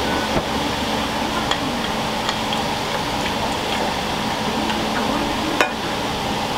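Steady ramen shop kitchen noise with a few light clicks and knocks of utensils and bowls, the sharpest near the end.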